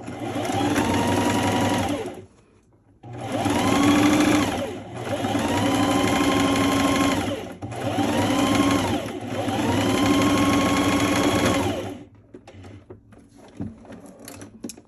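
Electric domestic sewing machine stitching fabric in five runs of a few seconds each, the motor whining up to speed at the start of each run. It stops about twelve seconds in, leaving only light fabric handling and a few clicks.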